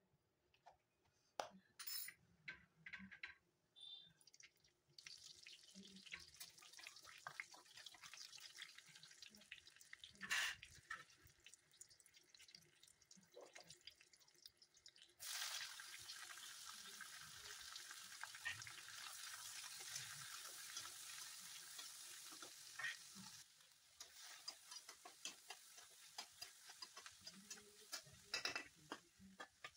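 Oil sizzling in a kadhai as whole spices fry, a steady faint hiss that turns suddenly louder about halfway through. Near the end the sizzle drops back and the spatula clicks and scrapes against the pan as sliced onions are stirred.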